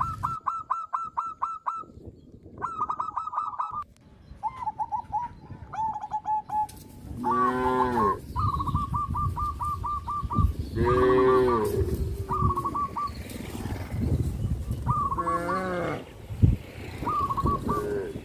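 Cows mooing three times, each a drawn-out call that rises and falls in pitch, over birds chirping in quick repeated runs. There is one sharp thump near the end.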